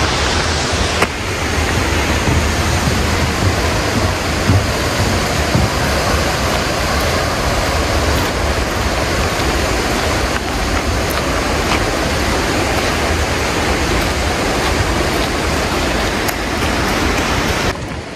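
Waterfall and rushing river water: a steady, loud rush with a deep rumble underneath, which drops and grows duller just before the end.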